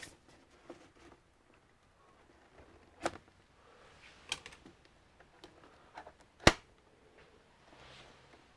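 Scattered sharp clicks and knocks from handling the parts and tools of an all-in-one desktop computer being taken apart. The loudest knock comes about six and a half seconds in.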